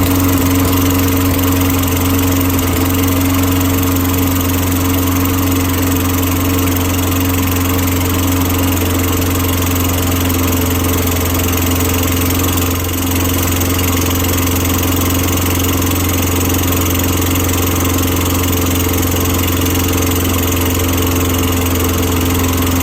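Briggs & Stratton walk-behind gas lawn mower engine running steadily at a constant speed, just after starting, with a brief dip in level about 13 seconds in. It keeps running without stalling, a sign that the cleaned carburetor is now feeding it properly.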